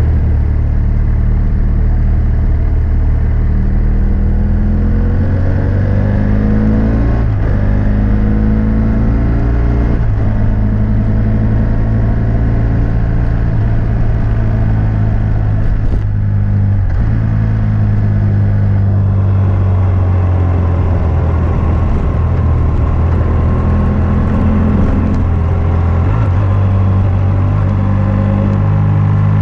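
BMW F800S parallel-twin engine running through a GPR Furore Nero exhaust with its dB-killer fitted, heard from a bike-mounted microphone while riding. The engine note climbs in pitch under acceleration about five to seven seconds in, then drops and changes several more times with throttle and gear changes.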